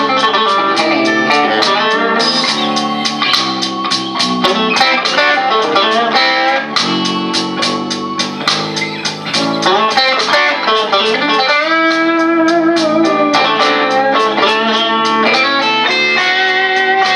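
Fender Squier Stratocaster electric guitar with a crunch tone playing improvised blues lines, with bent notes, over a blues backing track with drums.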